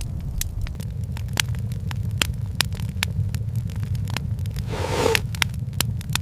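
Wood fire crackling with frequent sharp irregular pops over a steady low rumble, with a brief louder rush about five seconds in.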